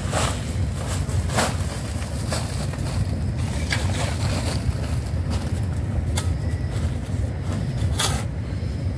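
Steady low wind rumble on the microphone, with about half a dozen short scrapes and rustles spread out as compost is scooped into a sack.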